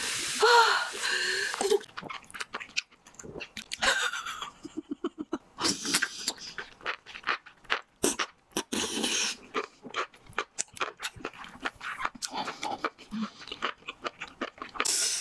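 Close-miked eating sounds: a fizzing pour of cola over ice at the start, then wet chewing, slurping and lip smacks on sauce-coated noodles as many short clicks. A few short whimpering vocal noises come in between.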